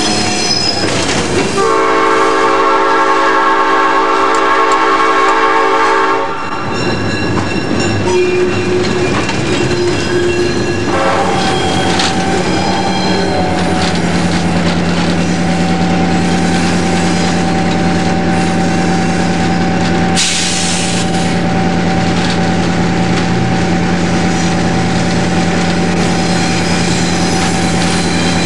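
EMD diesel locomotive's air horn heard from inside the cab: a short blast at the start, then one long blast of about four seconds. After it the locomotive's diesel engine runs with a steady drone as the train rolls on, with a short hiss about two-thirds of the way through.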